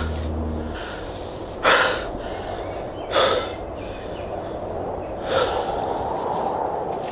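A man breathing heavily, with three sharp, audible breaths about a second and a half apart, over a steady background hiss.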